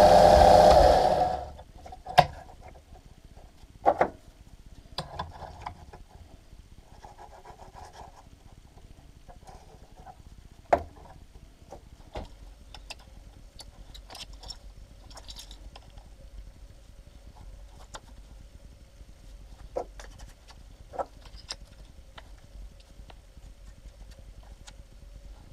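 Bench band saw cutting a small metal plate, stopping about a second and a half in. Then scattered clicks and knocks of small metal pieces being handled and set down on the saw table.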